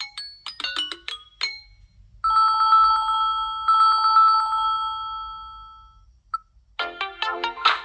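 Samsung Galaxy A12 ringtones: a few short bright chime notes, then an electronic telephone-bell ring, a fast pulsing two-tone trill sounded twice and fading away. About a second before the end a different ringtone starts with quick bright notes.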